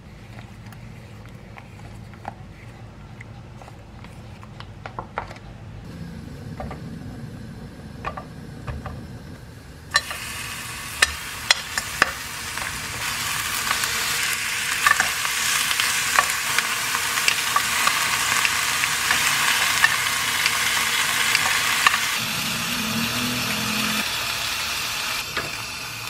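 Bone-in beef short ribs (LA galbi) sizzling loudly as they fry in a pan, with sharp clicks of tongs turning them; the sizzle starts about ten seconds in. Before it, quieter clicks and scrapes of chopsticks stirring rice cakes in a paper cup.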